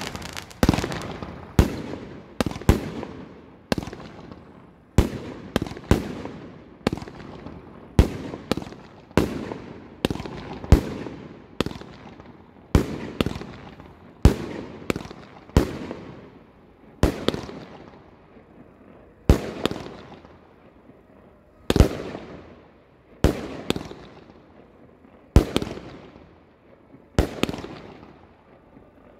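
Fireworks display: a steady run of sharp bangs, about one a second, each trailing off in a short echo as the shells burst overhead.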